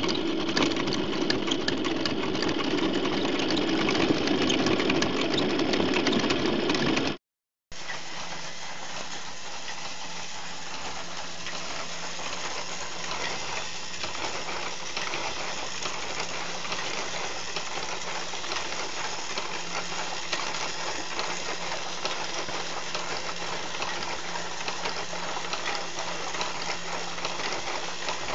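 Motor-driven toy model stationary engines built from Duplo and K'nex running steadily, a whirring motor with plastic cranks, rods and gears clattering. The sound cuts out for a moment about seven seconds in and resumes a little quieter as a different model runs.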